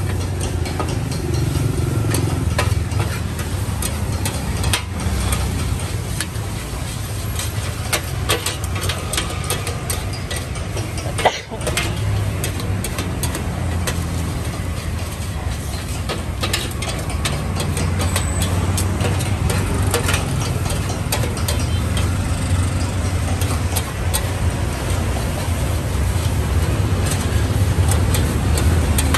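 Metal spatula scraping and clicking against a large steel wok as noodles are stir-fried, over a steady low rumble from the street: motorbike and vehicle traffic and the stall's burner.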